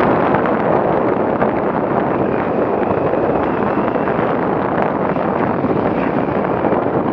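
Enduro motorcycle riding a rough dirt trail, heard through an action camera's microphone: steady wind buffeting on the microphone over the engine running.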